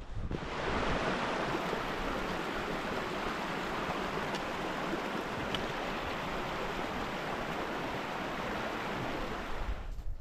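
Running water rushing steadily. It cuts in just after the start and cuts off abruptly shortly before the end.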